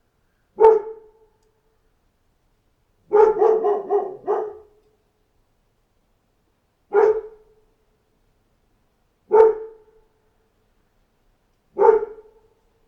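German shepherd barking: one bark, then a quick run of four barks, then three more single barks about two and a half seconds apart, with silence between them.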